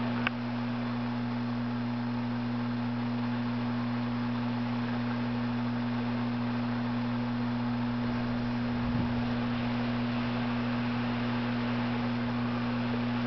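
Steady low electrical hum under a constant hiss, with a small click just after the start and a soft low thump about nine seconds in.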